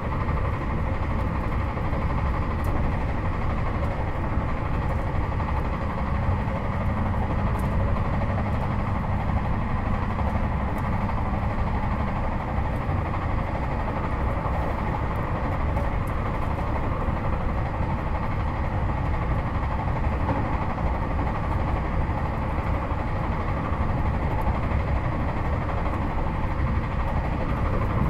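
Interior running noise of a JR Hokkaido 721 series 4000 subseries EMU motor car with Toshiba GTO inverter, travelling at speed between stations: a steady low rumble of wheels on rail and running gear.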